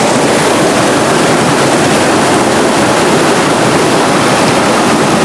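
Steady, loud rush of a tumbling mountain trout stream's water close by.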